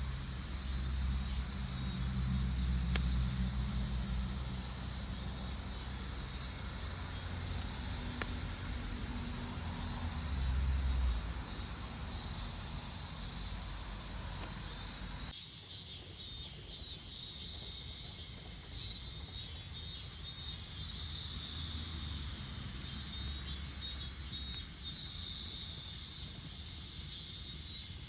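Chorus of summer insects shrilling steadily on a high pitch. A low rumble runs underneath for about the first eleven seconds; after an abrupt change about fifteen seconds in, the insect sound pulses.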